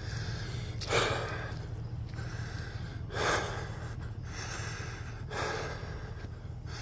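A man's heavy breathing close to the microphone: three loud breaths about two seconds apart, over a low steady hum.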